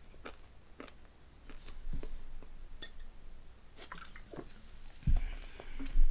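Close-up chewing of chocolate candies, with scattered wet mouth clicks and small crunches. Two loud low thumps come near the end.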